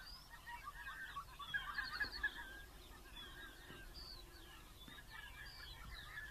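A flock of wild geese calling: many faint, overlapping honks throughout.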